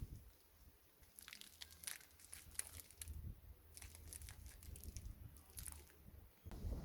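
Faint, scattered crinkling and clicking as seat belt webbing is handled and rubbed with ordinary soap during washing.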